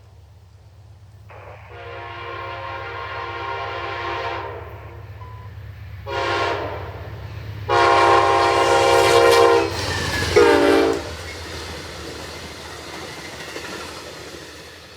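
Amtrak P42DC locomotive's multi-chime air horn playing a horn show as the passenger train passes: a long blast, a short one, a louder long one and a final short one. The train's rumble and wheel clatter swell as it goes by and then fade.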